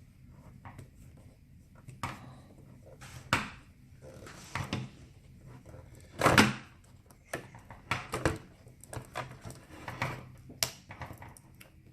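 Scattered small clicks, taps and rustles of hands working on a laptop screen assembly while the old LCD panel is freed, with one louder rustling scrape about six seconds in.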